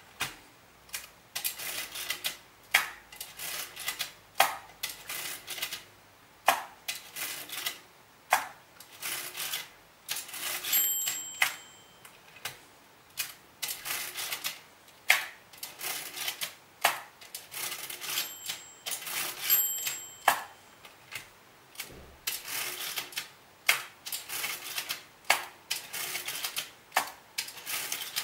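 Monroe hand-cranked desk mechanical calculator being cranked over and over, each turn a clattering run of gear clicks ending in a sharp clack, about one turn every second or two, as it works out a square root by repeated turns.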